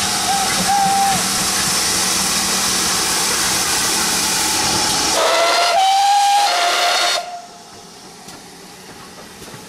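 Great Western Railway 56XX 0-6-2 tank engine No. 5619 running past with a loud steady hiss of steam, giving a short whistle near the start and a longer whistle of about two seconds from about five seconds in. The whistle and hiss cut off suddenly, leaving the quieter sound of the train rolling past.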